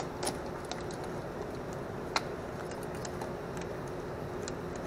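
Light metallic clicks and taps of a hand-held socket and extension as 6 mm bolts are started loosely by hand, with one sharper click about two seconds in, over a low steady hum.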